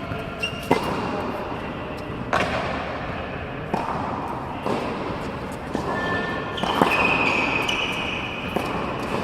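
Tennis balls being struck with rackets and bouncing on an indoor court: sharp pops every second or so, each with a hall echo.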